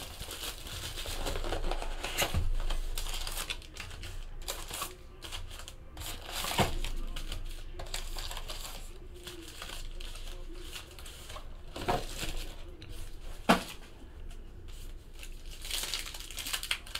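Plastic shrink wrap crinkling and tearing as a cardboard trading-card box is unwrapped and opened, with cardboard and card packs being handled. A few sharp snaps stand out among the rustling.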